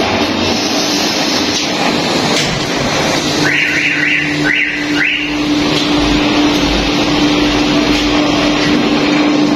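Auto rickshaw engine running with a steady hum. A metal door gives three short rising squeaks as it is swung open, a little after three seconds in.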